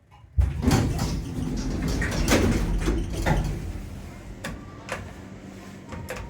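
Becker passenger lift's automatic sliding doors moving, starting suddenly about half a second in with knocks and rattles over the first few seconds, then quieter running. The door movement is set off by the door's light-beam safety sensor.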